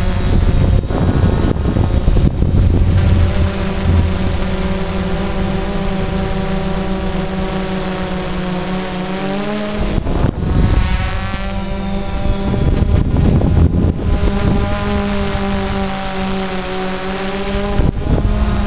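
DJI Phantom quadcopter's electric motors and propellers whining steadily, heard close up from the GoPro mounted on the drone, with a low gusty rumble. The pitch drops and then climbs again about ten seconds in as the throttle changes.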